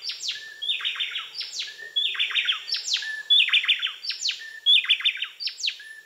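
Bay wrens singing a duet, a male and a female blending their songs into one complex phrase. The phrase comes over and over, about every second and a quarter, each time opening with high falling whistles and ending in a quick run of notes.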